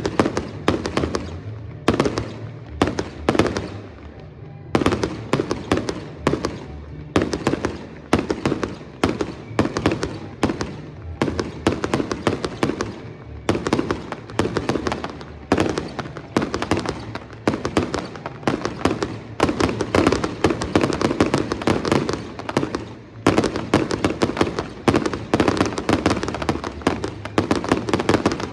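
Professional fireworks display: a rapid, near-continuous barrage of bangs and crackle, with a brief lull about four seconds in and denser, heavier firing in the second half.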